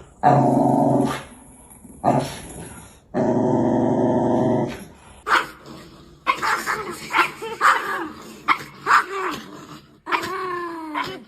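A dog growling and barking: two long, drawn-out growls, then a run of short barks and yips, ending with a whine that falls in pitch.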